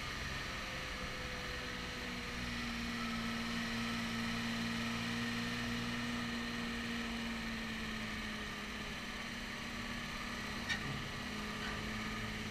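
Unimog 404 fire engine's six-cylinder petrol engine running steadily as the truck drives slowly, its note dropping slightly about eight seconds in as it eases off. A single short click near the end.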